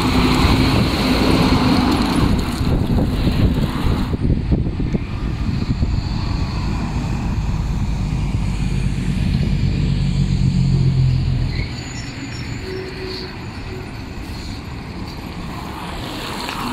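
Heavy diesel trucks driving past close by. First a tri-axle dump truck, then a semi tractor pulling a long aluminium dump trailer, whose engine hum is loudest about ten seconds in. A little before twelve seconds the engine note drops away and the lighter rumble of the trailer's tyres rolling past carries on.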